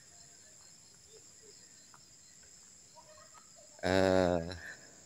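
Faint, steady high-pitched insect chirring in the forest, with a man's short voiced utterance about four seconds in.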